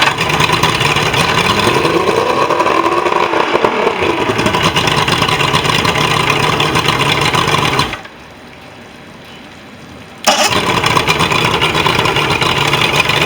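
Mercury XR6 150 two-stroke V6 outboard running, now that its fouled fuel has been cleaned out and new spark plugs fitted. Its pitch rises and falls with a brief rev a few seconds in. About two-thirds of the way through the engine sound suddenly drops away for about two seconds, then comes back abruptly.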